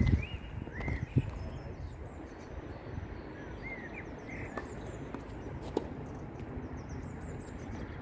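A few sharp knocks of a tennis ball: one right at the start, one about a second in and one near six seconds in. Between them, birds chirp over a steady outdoor background hiss.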